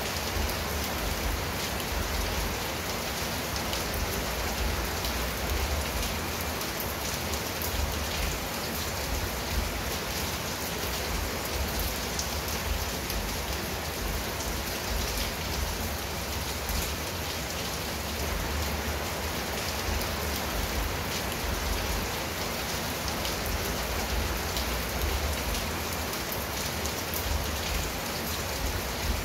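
Steady rain falling on a clay-tile roof and garden shrubs, a dense even hiss with many individual drops ticking through it, over a low rumble.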